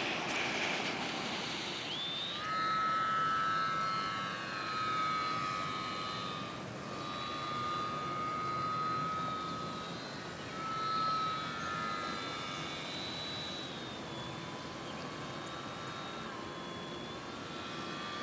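Small RC foam airplane's motor and propeller whining. The pitch rises about two seconds in as the motor is throttled up, then holds with small wavers and dips slightly near the end.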